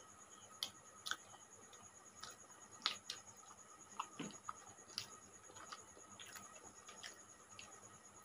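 Faint, irregular small clicks and smacks of people eating with their hands: chewing and lip smacks, with fingers working rice on plates, spaced unevenly over a faint steady high-pitched whine.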